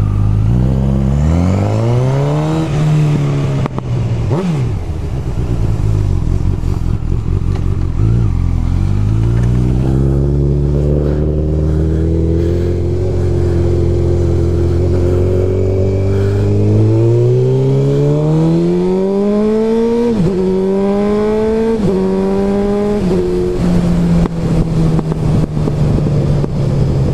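Motorcycle engine accelerating away and shifting up through the gears. Its pitch climbs, then drops sharply at each change, twice near the start and three times in quick succession later on, with a steady cruise in between.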